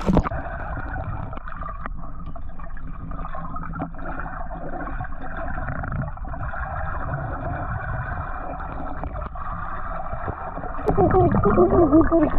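Muffled underwater sound of a swimming pool heard from a submerged camera: the high sounds vanish as it goes under at the very start, leaving a steady rumble and water noise. Near the end a muffled, warbling voice and bubbles are heard under the water.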